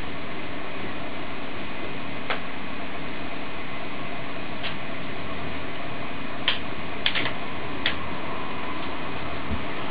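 A few sharp plastic clicks as LEGO Technic pieces are handled and snapped onto the model's chassis, most of them bunched together in the second half, over a steady background hiss.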